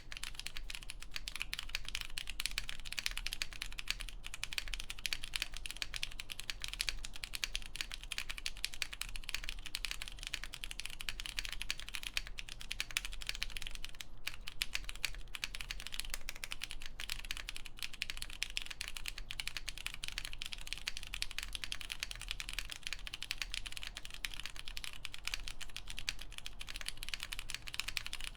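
Continuous fast typing on an MM Studio Class65 V3 mechanical keyboard with lubed Cherry MX Purple switches on a polypropylene plate, giving a dense, unbroken stream of keystroke clicks.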